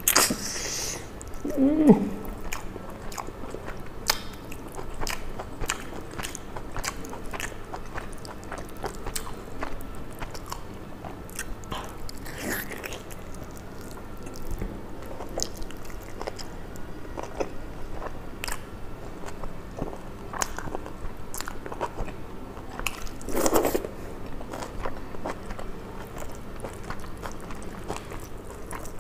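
Close-up eating sounds: biting, crunching and chewing a curried chicken leg piece, with many small clicks. There are a few louder moments, near the start and about 23 seconds in.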